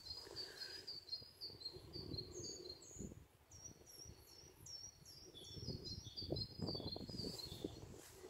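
Faint birdsong: a small bird repeating short high chirps in quick runs, a few a second, over low irregular rustling.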